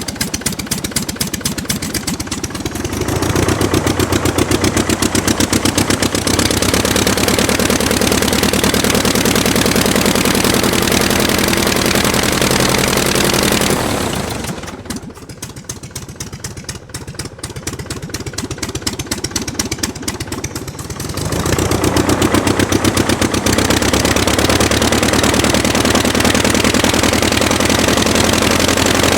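Aircraft piston engine on a ground run, throttled up a few seconds in and held at a steady higher speed. About halfway through it drops back to a slower, quieter run for several seconds, then is throttled up again.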